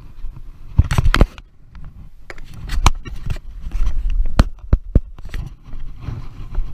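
Sharp clicks and knocks from a plastic water bottle being handled, with a cluster about a second in and a few more single clicks through the middle, over low wind rumble on the microphone.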